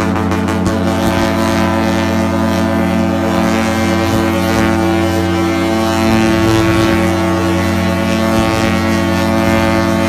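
Cruise ship's horn sounding one long, steady, unbroken blast.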